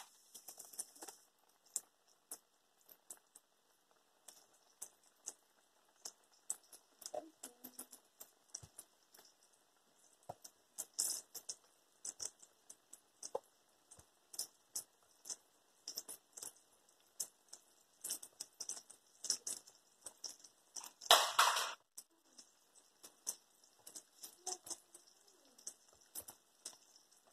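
Battered bacon strips deep-frying in a pan of hot oil: irregular crackling and popping throughout, with one louder burst of sizzling lasting about a second roughly three quarters of the way through.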